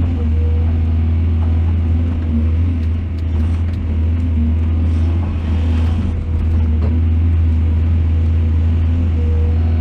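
Heavy excavator's diesel engine running steadily at work with a deep, even hum, a few light knocks and clicks in the middle.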